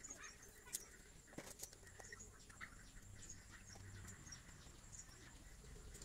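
Near silence, broken by a few faint clicks and taps of hands working wire and small fittings on a wooden board, with faint high chirps in the background.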